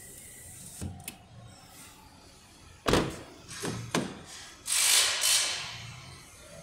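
Toyota RAV4 door being worked by hand: a click of the inside handle and latch about a second in, then two loud thuds near three and four seconds as the door is opened and shut, followed by a brief rushing noise.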